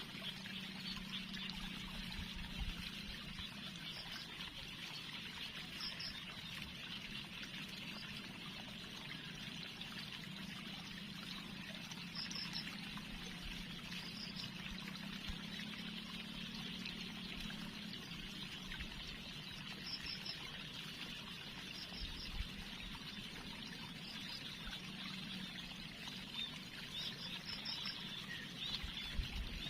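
Steady trickling of running water, with faint short high chirps now and then.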